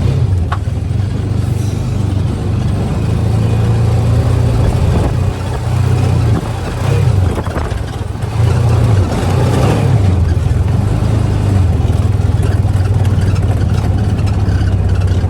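Small off-road buggy's engine running under way, heard from on board, its pitch rising and falling with the throttle between about five and ten seconds in, then holding steady.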